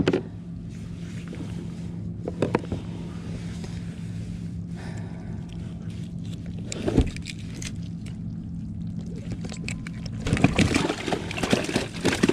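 Handling noises in a kayak cockpit as a caught tautog and the angler's gear are moved about: a sharp knock at the start, a couple more about two and a half and seven seconds in, and a run of clatter and rustling near the end, over a steady low hum.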